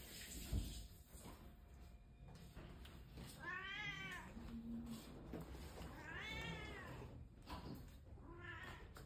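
A cat meowing three times, each call rising then falling in pitch, the last one shorter. A brief low thump comes about half a second in.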